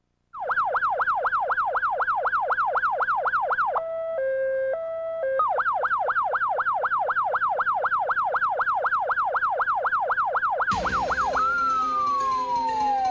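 Police car electronic siren sounding in a fast yelp, sweeping up and down about four times a second. About four seconds in it switches briefly to an alternating two-tone hi-lo, then yelps again, and near the end it drops into a slow falling wail. A broad rushing noise joins near the end.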